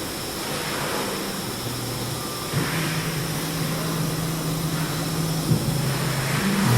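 TR408H ATC CNC router running: a steady hiss of spindle and cutting noise, with a faint high whine and a low motor hum that shifts pitch in steps as the machine moves.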